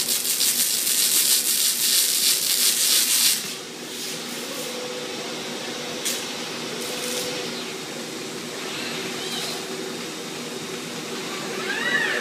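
Two robotic MIG welding arcs crackling and hissing, then cutting off about three and a half seconds in as the weld ends. After that the weld cell's steady machinery hum remains, with the robot arms' servo motors whirring as they reposition and a short rising-and-falling whine near the end.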